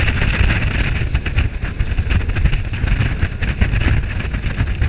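Speedboat running at speed over open sea: a loud, uneven rumble of wind and engine on the microphone, with the hiss of spray and water rushing past the hull.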